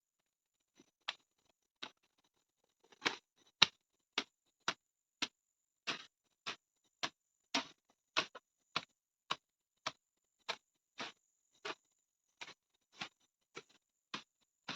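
A regular series of sharp taps or clicks, a few at first and then about two a second, with silence between them. No chainsaw engine is running.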